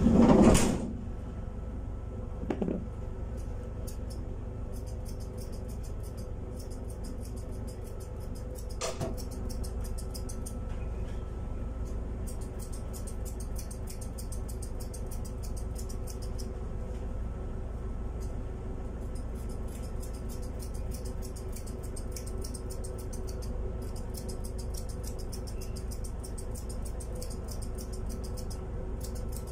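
Grooming shears snipping through a cat's fur in quick, repeated snips that come in runs, over a steady low hum.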